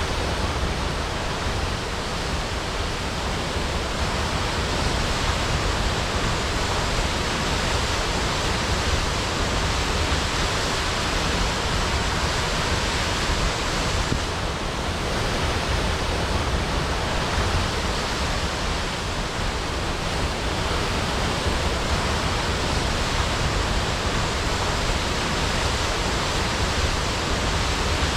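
Waterfall crashing: a steady, even rush of falling water.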